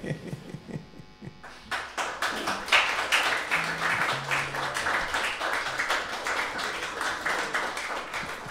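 The last notes of an acoustic band's song ringing out, then audience applause starting about two seconds in.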